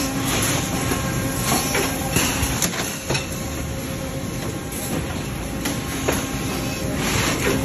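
Industrial thermoforming machinery running: a steady mechanical rumble and hiss with a few faint steady tones and sharp clacks every second or so.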